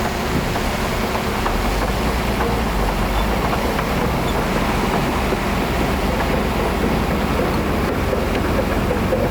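Heavy diesel earthmoving machinery running steadily, with a low rumble that grows stronger about a second and a half in.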